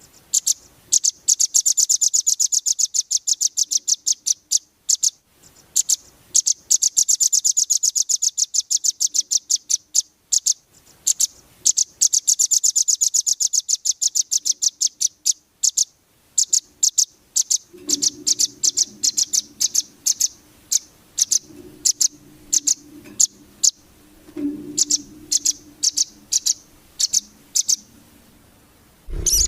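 Velvet-fronted nuthatch (rambatan) song: long runs of very rapid, sharp, high-pitched chips, the fast 'besetan' chatter, broken by short pauses. A faint low hum sits underneath in the second half.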